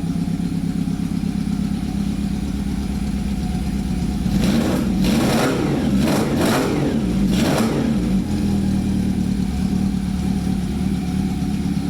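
1991 Honda Nighthawk 750's inline-four engine, running through a chopped exhaust with pod air filters, idling and blipped up in several quick revs about halfway through before settling back to idle.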